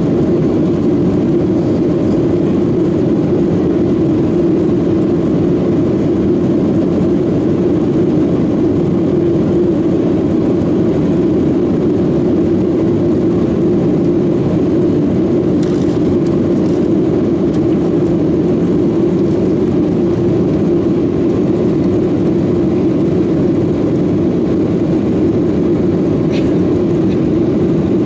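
Steady cabin noise inside a Boeing 737-800 climbing out after takeoff: the deep, even drone of its CFM56-7B jet engines and the airflow, heard through the cabin.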